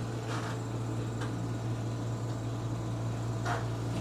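Steady low hum over a soft hiss, with a few faint light taps.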